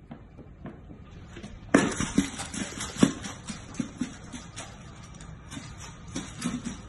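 Golden retriever puppy eating from a bowl on a hardwood floor: irregular clicks, crunches and knocks of eating and of the bowl against the floor. They start sharply about two seconds in.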